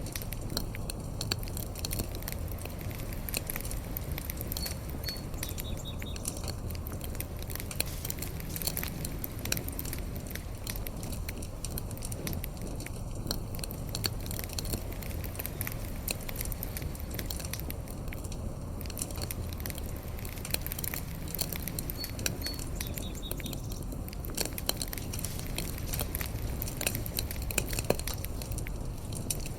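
Fire burning and crackling: many small sharp pops and snaps at irregular moments over a steady low noise of the burning.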